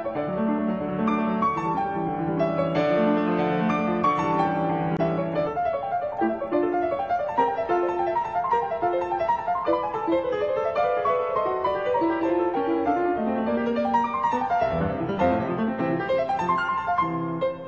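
Piano music with many quick notes, fading out at the very end.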